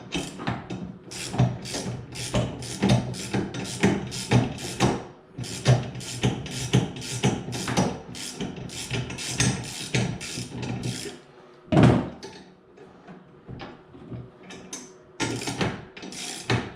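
Hand ratchet wrench clicking in a fast, even run of strokes, about three a second, as bolts are tightened. The clicking pauses about two-thirds through, broken by one sharp knock, then resumes near the end.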